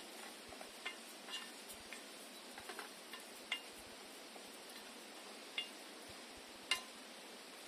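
Scattered light clinks and taps of metal cookware and utensils, a few with a brief ring, the sharpest near the end, over a faint steady hiss.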